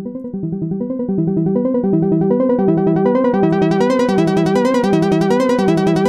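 Retro Machines synthesizer line playing on its own: a fast, even ostinato of short repeated notes in an arpeggio pattern, getting louder over the first second and brighter over the first few seconds.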